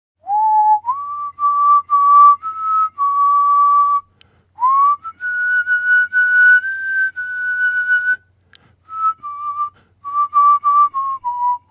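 A tune whistled by a person: one melody line in short, often repeated notes, sliding up into the start of each phrase, with a brief break about four seconds in.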